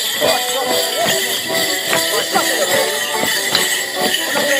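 Folk band playing a Border Morris dance tune, with the jingling of dancers' leg bells and repeated stamps of boots on a boarded dance floor.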